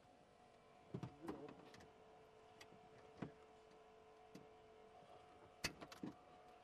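Faint steady whine of a hydraulic rescue tool and its pump running, with a few sharp clicks and cracks of car body metal and trim as the tool bites into it, the loudest near the end.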